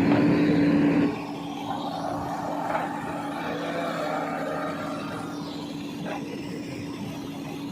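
Diesel engine of the tractor or the backhoe running steadily at a constant speed, louder for about the first second and then settling to a lower, even level.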